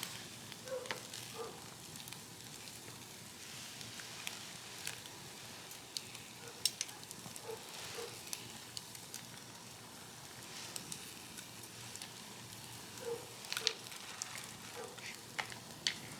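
Wood fire burning in a flat fire pit: a soft steady hiss with scattered sharp crackles and pops.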